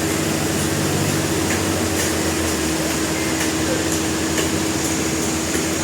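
Industrial sawmill machinery running steadily: a constant mechanical hum with one held mid-pitched tone and a few faint ticks.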